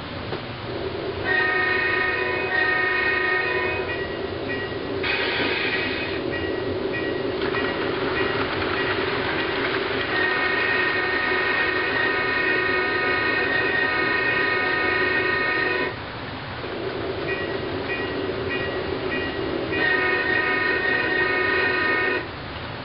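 HO scale model diesel locomotive's sound decoder playing a chime horn through its small speaker. There is a blast about a second in, a long one of about six seconds in the middle, a few short toots, and another blast near the end. A steady drone runs underneath, with a brief hiss about five seconds in.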